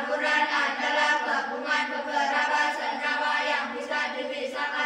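A group of young students chanting together in unison, their voices running on continuously with hardly a pause.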